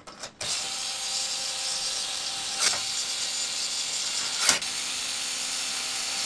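Small cordless electric screwdriver running steadily as it drives a rack-mount screw into the rack rail, with two short sharp clicks partway through.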